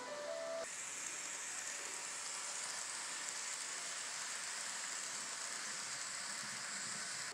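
Steady hiss of an N scale model passenger train rolling past close by on the track. It starts abruptly about half a second in, after a few notes of music.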